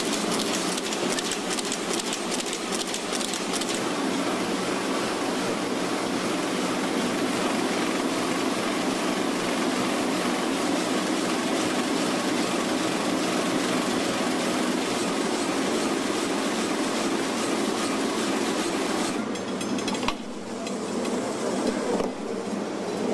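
Banknote printing and sheet-handling machinery running: a steady, dense mechanical clatter with fast clicking in the first few seconds. It drops suddenly and changes character about twenty seconds in.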